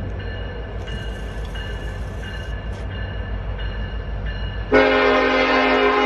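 Approaching Norfolk Southern diesel freight locomotive running with a low rumble, then its air horn comes on suddenly near the end and is held as a loud chord of several tones.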